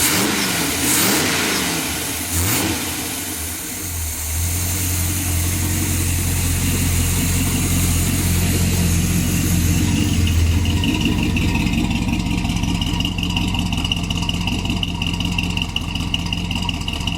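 1966 Chevrolet pickup's engine revved a few times, then running at a steady idle; the owner says it doesn't idle well while cold and its carburetor needs work. A steady high whine joins the engine about twelve seconds in.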